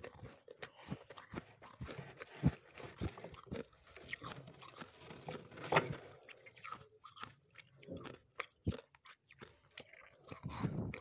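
Crunchy freezer frost being dug out by hand and chewed: a run of irregular crisp crunches and crackles, a few much louder than the rest.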